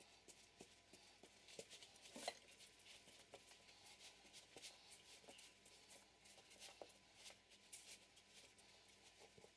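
Faint soft rustles and small ticks of hands rolling a thin sheet of buttered dough into a tight log on a table, with one slightly louder tick about two seconds in.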